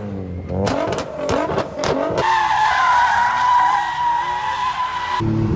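A car engine revving with sharp pops over the first two seconds, then about three seconds of steady tyre squeal from a car drifting, which cuts off suddenly near the end.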